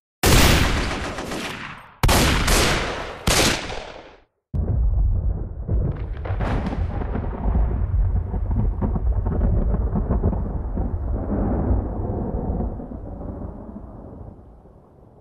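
Three loud gunshots, each echoing away over a second or so, the last about three seconds in. Then a low rumble comes in suddenly and slowly fades away.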